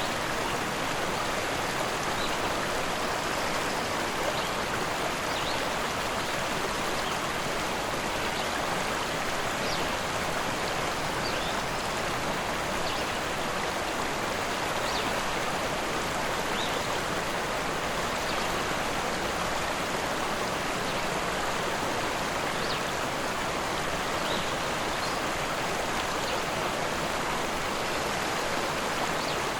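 Rushing river: a steady, unbroken wash of flowing water, with faint brief high ticks every second or two.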